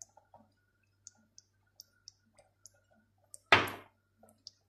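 Faint, scattered clicks and taps of kitchen containers being handled, then one hard knock about three and a half seconds in.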